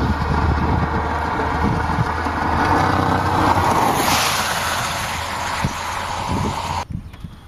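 Wind buffeting the microphone, with a vehicle going by on the road: its tyre and road noise swells about four seconds in, and the sound cuts off abruptly near the end.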